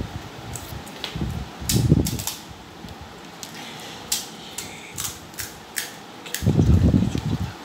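Crisp fuchka (pani puri) shells cracking and crunching: a dozen or so sharp, irregular cracks, with two stretches of low dull knocking and handling, about a second and a half in and again near the end.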